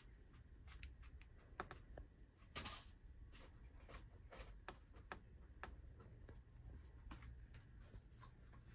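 Near silence: low room hum with faint, irregular clicks and taps, one a little louder just under three seconds in.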